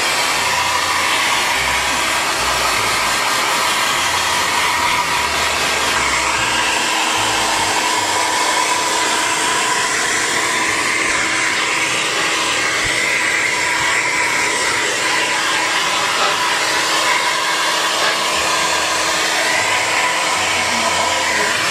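Hair dryer blowing steadily on a wet cat's fur after its bath: a continuous even rush of air with a faint steady hum beneath, unchanging throughout.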